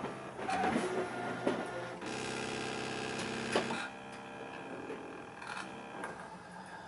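Brother ScanNCut DX cutting machine running a cut on vellum: its motors drive the blade carriage across the mat, with a steady motor tone that ends in a click just before four seconds in, then a quieter hum.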